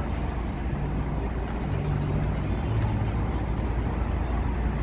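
Street traffic: a steady low rumble of car and truck engines, with a low engine hum coming and going a few times.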